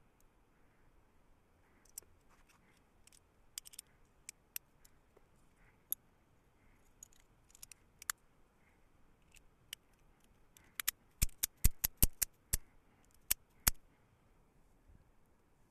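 Sharp metallic clicks from a Microtech Ultratech double-action out-the-front knife being handled during repair. Scattered light clicks give way, about two-thirds in, to a quick run of about eight loud snaps.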